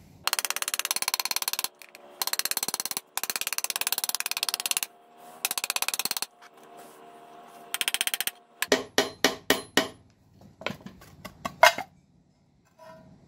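Rapid metal-on-metal scraping in several bursts on the cast-iron casing of an antique Buffalo hand-crank forge blower, with a faint ringing from the iron, as the rust-welded casing halves are worked apart. After that comes a run of about half a dozen sharp, ringing metal knocks, with a few more near the end, the last of them the loudest.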